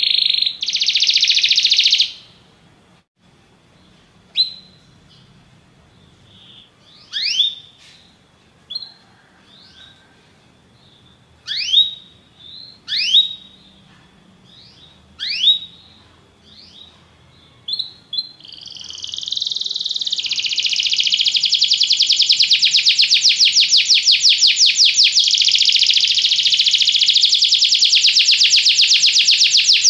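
Canary singing. A short loud trill opens, then come scattered sharp downward-slurred notes with pauses between them, and about eighteen seconds in it launches into a long, rapid rolling trill that swells and holds loud.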